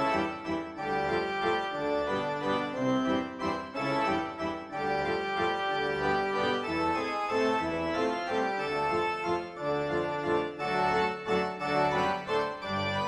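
Background music of held chords, the notes changing every second or so.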